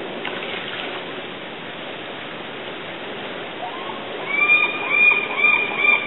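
Steady rushing noise of water. A little past halfway a gull starts calling, a quick series of short, clear rising-and-falling calls, about three a second, louder than the water.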